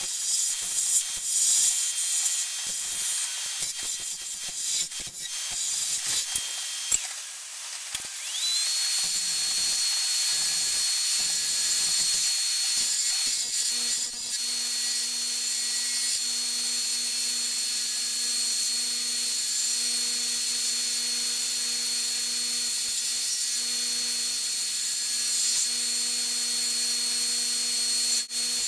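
Wood lathe running while a turning tool cuts a sapele handle blank, giving a steady hiss and scraping of the cut with a thin motor whine that rises in pitch about eight seconds in.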